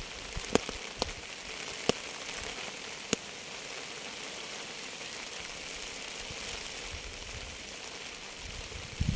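Steady rain falling, a hissing patter with four louder single drops striking close by in the first three seconds.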